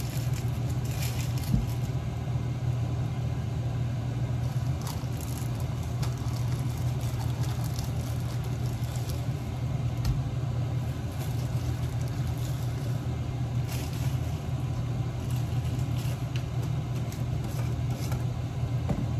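A steady low rumble with a few faint light clicks here and there.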